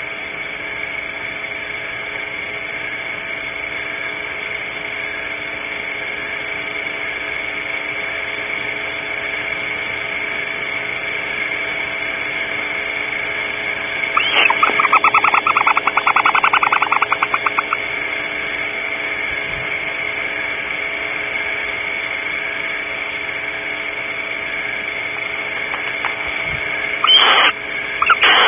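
An owl calling twice: a short falling note that runs into a rapid trill of pulses, about 14 s in and again near the end. Under it is a steady electrical hum with a high steady tone.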